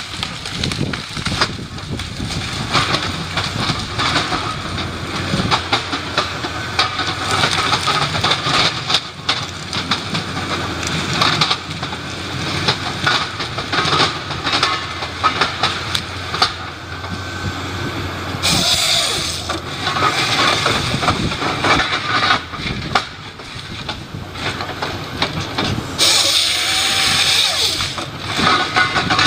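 Heavy wood-processing machinery running under load, with many knocks and cracks, and two bursts of hiss, a short one about two-thirds of the way in and a longer one near the end.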